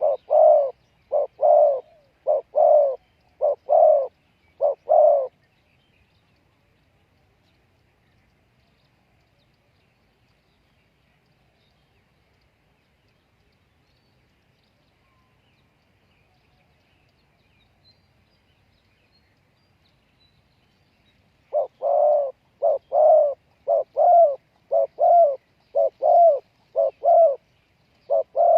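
Spotted dove cooing, a decoy bird calling to lure wild doves. It gives a rapid run of low, repeated coo phrases for about five seconds, falls silent for a long stretch, then starts cooing again about twenty seconds in.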